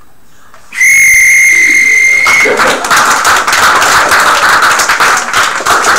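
A buzzer sounds one steady high tone for about a second and a half, signalling the end of an improvisation, and the audience then breaks into applause.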